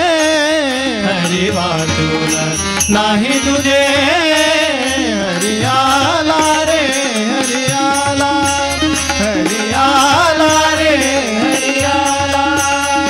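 Devotional bhajan: a male voice sings a melodic line with wavering, ornamented pitch, accompanied by tabla and harmonium.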